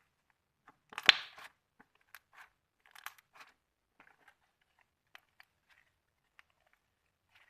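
Thick, glossy slime being handled: a sharp pop about a second in, then scattered small clicks and crackles.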